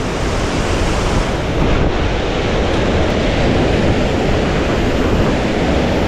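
Waterfall pouring, a steady loud rush of water.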